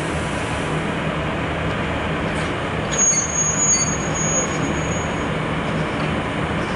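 ET22 electric freight locomotive shunting slowly up to a rake of coal wagons, with a steady low hum. About three seconds in, a high squeal sounds for around two seconds.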